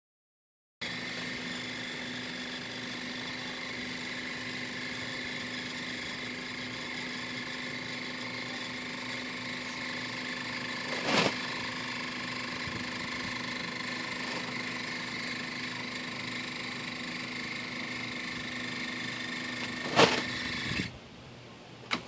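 Electric linear actuator's motor running with a steady whine as it slowly extends and pushes a hinged plywood chicken-coop door open. There is a knock about halfway through and a louder clunk just before the motor stops near the end.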